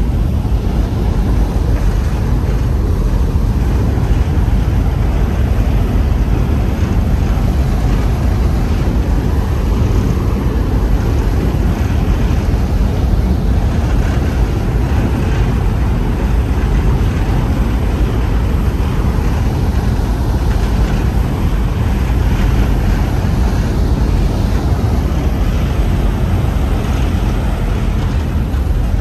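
Steady low rumble of a moving ferry heard from its open deck: the engines and propellers driving the boat, with the churning wake and wind on the microphone mixed in.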